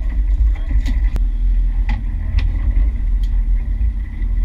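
Boat's outboard motor running steadily, a deep low rumble with a faint hum above it, with a few light clicks scattered through.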